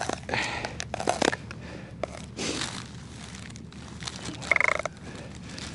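Irregular crunching and rustling in snow, with a brief squeak about four and a half seconds in.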